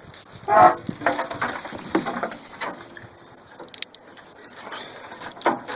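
Riding-mower wiring harness being dragged and tugged out through the mower's frame. It gives a series of irregular scraping, crackling rubs, with a brief louder pitched sound about half a second in.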